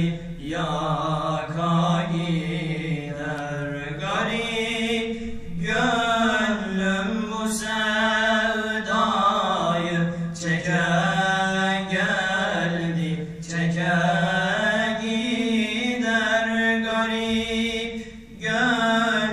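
Male voice singing a Turkish ilahi (Islamic hymn) without instruments, in long, ornamented held notes that waver and glide between pitches, with short breaks for breath every few seconds.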